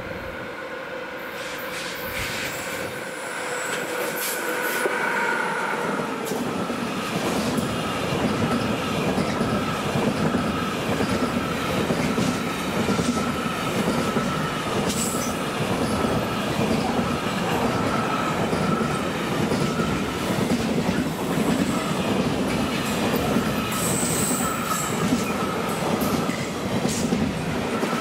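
A freight train of pocket wagons loaded with lorry semitrailers approaches and runs past close by. It grows louder over the first several seconds, then settles into a steady rumble and clatter of wheels on the rails. A high ringing wheel tone comes and goes every couple of seconds.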